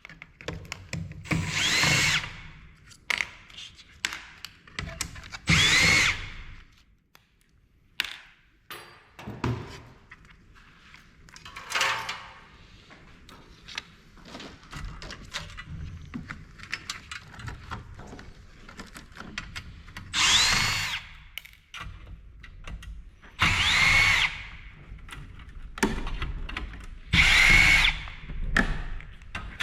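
Power drill-driver backing out screws in five short bursts, its motor whine rising and falling in pitch each time, with small clicks and knocks of parts being handled between the bursts.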